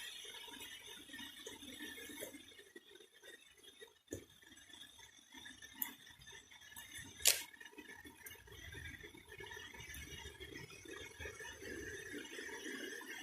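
Faint, steady rush of water from a small natural waterfall, with a few sharp clicks, the loudest about seven seconds in.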